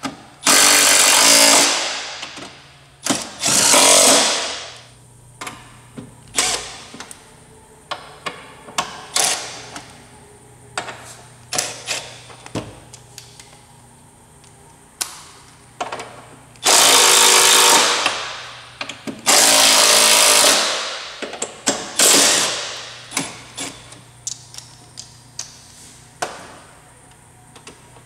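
Cordless 3/8-inch impact wrench run in short bursts, each one to two seconds long, as it drives bolts tight at the truck's hood hinge. Two bursts come near the start and three close together past the middle, with small clicks and knocks of tool handling between them.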